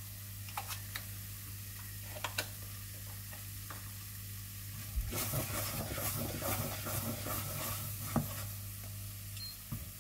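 Wooden spatula stirring and scraping spices frying in a little applesauce in a nonstick pan, over a faint sizzle. A few light taps come in the first seconds, and steadier scraping starts about halfway through.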